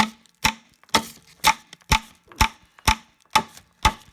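Hammer blows on a seized, torch-heated engine-mount carriage bolt, evenly about two a second, each a sharp metallic knock with a short ring. The bolt does not budge.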